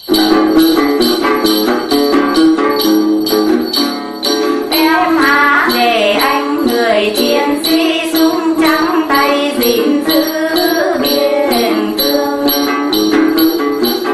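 Instrumental intro of Tày then music: shaken jingle bells keep a steady beat of about two a second over plucked strings, and a wavering lead melody comes in about five seconds in.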